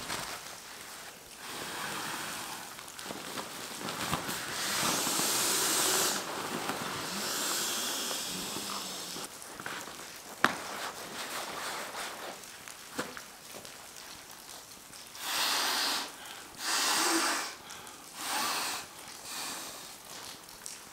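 Nemo Tensor inflatable sleeping mat being unrolled and blown up: nylon fabric crinkling and rushes of air as it fills, with three short breathy rushes of air near the end.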